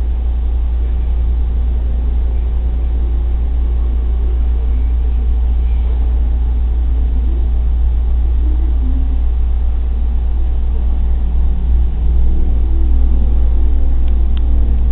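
Steady low rumble that is the loudest sound throughout, with faint, indistinct shifting sounds above it.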